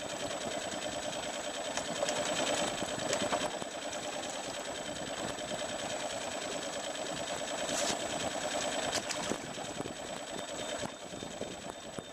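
Small fishing boat's engine idling steadily, a dense rattling hum, with a few sharp clicks about three, eight and nine seconds in.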